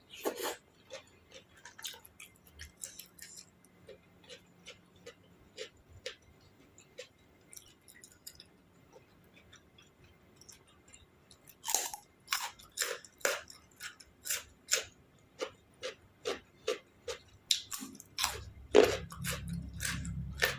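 A person chewing crisp raw vegetables and spicy seafood papaya salad, close-up mouth crunches about twice a second that grow louder about halfway through, with a low hum near the end.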